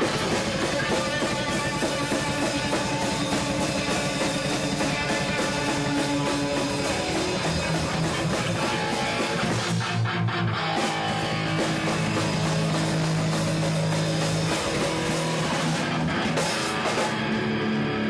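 Rock music on electric guitar over a drum kit. About ten seconds in the drums thin out for a few seconds under long held notes, then the playing picks up again.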